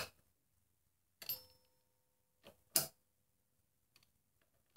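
Hand tool clinking and clicking on the metal valve body of a VW 09G transmission as its small bolts are tightened by hand: a ringing metallic clink about a second in, then two sharp clicks near three seconds, the second louder, and a few faint ticks near the end.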